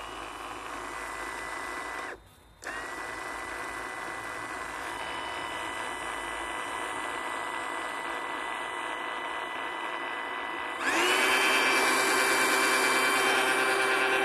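Stihl MSA 160 T battery chainsaw's electric motor spinning the bare drive sprocket with the bar and chain off, a steady whine that winds up quickly each time the trigger is pulled. It cuts out for about half a second near two seconds in, starts again, and runs louder about eleven seconds in.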